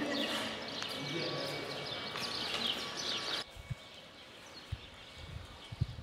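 Birds chirping busily in many quick falling notes, cut off abruptly about three and a half seconds in. A quieter background with a few soft low thumps follows.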